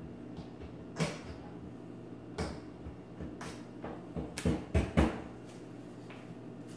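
A run of sharp clicks and knocks over a steady low hum, a few spaced out and then a quick cluster about four to five seconds in, the last one the loudest.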